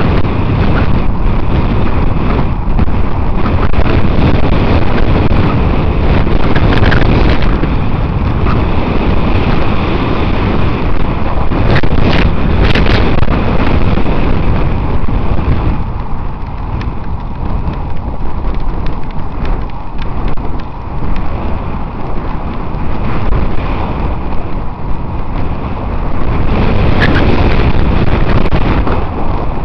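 Loud wind buffeting on the microphone of a cyclist riding fast downhill, a steady low rush that eases a little about halfway through and picks up again near the end.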